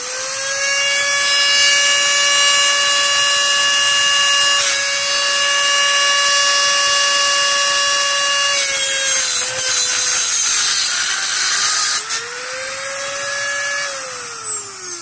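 Dremel rotary tool fitted with a cutoff wheel, running at full speed with a steady high whine. Its pitch sags and wavers for a few seconds midway, comes back up, then falls away near the end as the motor winds down.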